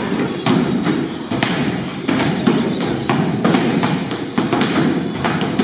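Bare-foot kicks striking handheld taekwondo kick paddles: a quick, uneven run of sharp smacks, roughly two a second.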